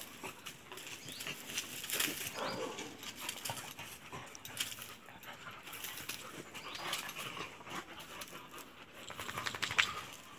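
Dogs play-wrestling: irregular scuffling and scratching of paws over dirt and dry leaves, with brief dog vocal sounds, busiest near the end.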